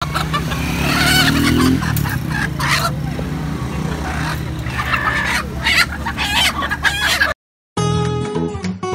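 Live chickens and roosters in a wire market cage squawking and clucking as they are grabbed and lifted out. About seven seconds in the sound cuts off, and after a brief silence strummed acoustic guitar music begins.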